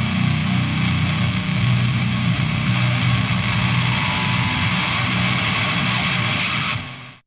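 Heavy rock music: a dense, sustained wash of distorted electric guitars with no singing, which fades out quickly about seven seconds in.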